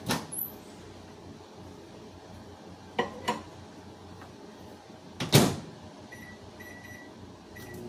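Over-the-range microwave being loaded: a few clicks and knocks as the egg cooker goes in, then the door shut with a loud thump about five seconds in, followed by a few short keypad beeps as the time is set.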